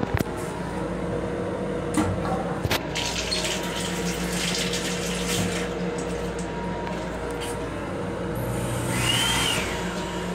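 Water running from the M7 railcar restroom's faucet into the sink, over the steady hum of the train car. There are a few sharp clicks in the first three seconds.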